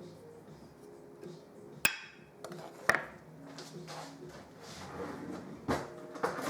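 Kitchen utensils and dishes knocking and clinking on a counter: two sharp knocks about a second apart, then another near the end.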